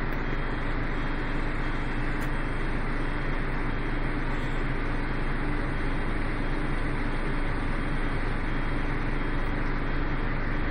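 Karosa B931 city bus's diesel engine running steadily, heard from inside the passenger cabin.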